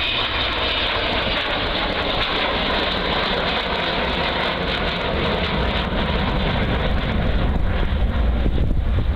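Avro Vulcan B2's four Bristol Olympus turbojets running as the bomber banks away overhead: a continuous jet roar, with the low rumble growing louder near the end.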